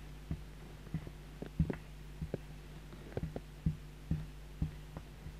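Marker pen writing on a whiteboard: short, irregular strokes and taps, roughly two a second, over a faint steady hum.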